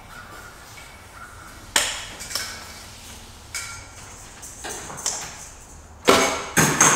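Metal hand tools and hardware clinking and knocking: a few separate sharp strikes with short ringing, then a louder quick run of clanks near the end.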